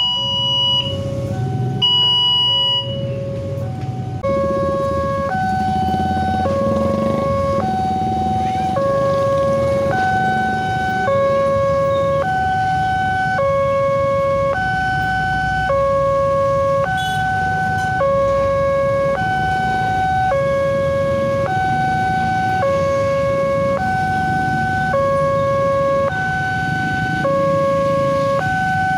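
Railway level-crossing warning: a pulsed high-pitched buzzer beeps for the first few seconds, then from about four seconds in the crossing alarm sounds, alternating steadily between a low and a high electronic tone about every 0.7 s. Low rumble of waiting traffic underneath.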